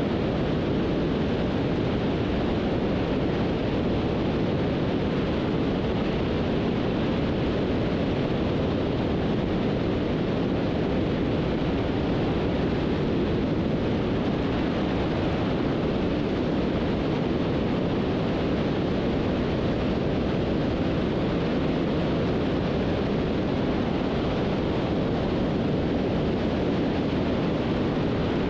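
Steady cockpit noise of a Beech 18's twin radial engines: an even, unbroken rumble with hiss.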